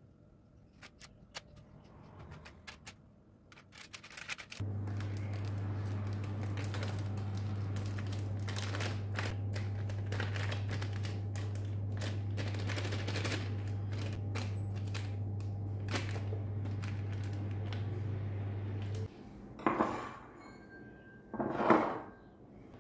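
An electric kitchen appliance's motor runs steadily for about fourteen seconds, switching on and off abruptly, with a low hum under it. Light clicks and taps come before it, and two louder knocks or clatters near the end.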